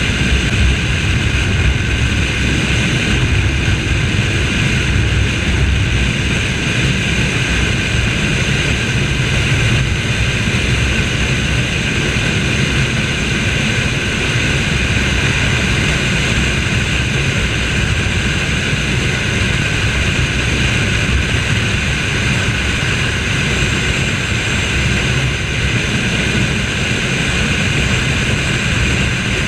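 Yamaha R3's 321 cc parallel-twin engine running hard at high, nearly constant revs near top speed, its note steady with no gear changes, over a heavy low rush of wind on the microphone.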